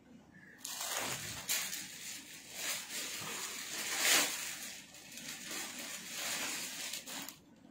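Clear plastic wrapping on packaged clothing crinkling and rustling as the packets are handled and shifted, in uneven rustles that start just under a second in and stop shortly before the end.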